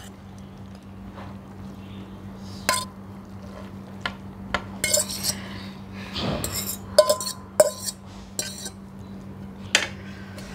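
Metal spoon clinking and scraping against a steel container as noodles are served out onto a plate: scattered sharp clinks, several ringing briefly.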